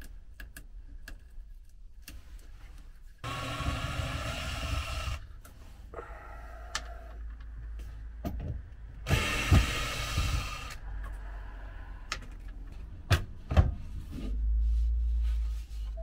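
Cordless drill-driver running in two bursts of a couple of seconds each, backing out the screws on the side of a wooden cabinet panel. A couple of sharp knocks follow later on.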